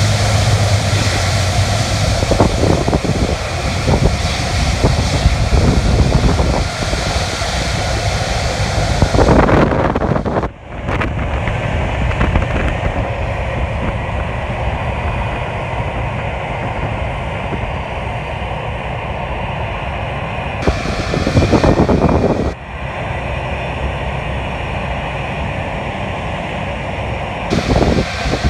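British Airways Boeing 747-400's four Rolls-Royce RB211 turbofans running at low taxi thrust, a steady jet whine and rumble as the aircraft taxis and turns. Wind gusts hit the microphone about ten seconds in, around twenty-one seconds in and near the end.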